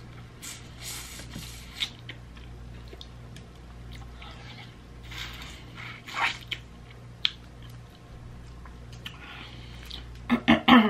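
Close-miked eating: sucking and biting meat and sauce out of lemon-pepper snow crab shells, with wet slurps and small sharp clicks from the shell, and a few loud mouth smacks near the end.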